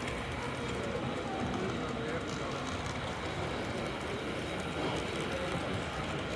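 Steady murmur of crowd voices in a hall, with a model diesel locomotive running along the layout track.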